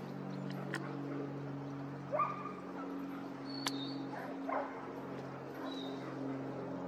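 Steady drone of the Cessna 404 Titan's twin piston engines overhead. A dog barks twice, about two seconds in and again about four and a half seconds in; these barks are the loudest sounds.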